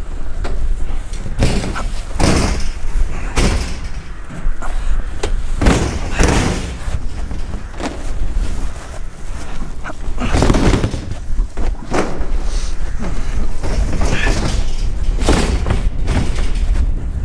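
Irregular thumps and knocks as a 1000-litre IBC tote, a plastic tank in a galvanised steel cage, is handled and shifted, with wind rumbling on the microphone.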